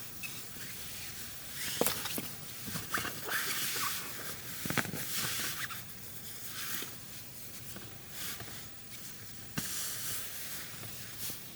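Fabric rustling and handling noise as a pillowcase is pulled over a pillow, in irregular bursts with scattered soft clicks. The pillowcase barely fits.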